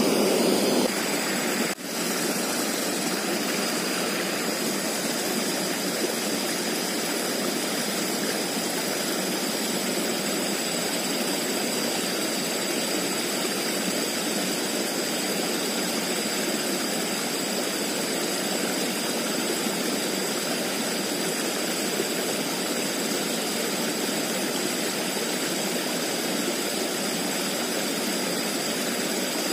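Steady rushing of flowing stream water, with a faint steady high-pitched tone above it and a short click about two seconds in.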